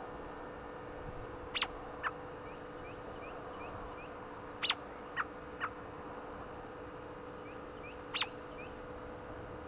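American robin giving short, sharp chirps, each a quick downward-sliding note: two about a second and a half in, three more around five seconds, and a single one near eight seconds.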